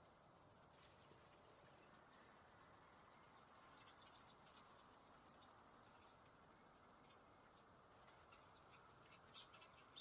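Faint, very high, short bird chirps, a dozen or so in quick succession over several seconds, over a steady outdoor hiss.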